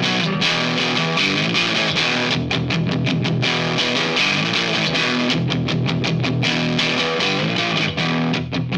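Electric guitar played through a Kink Absolution Fuzz pedal, a thick fuzz tone sounding riffs with stretches of fast picking.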